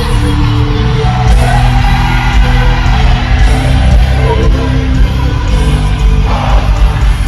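Live gospel praise-and-worship music: a band with a strong bass and held chords, with singing.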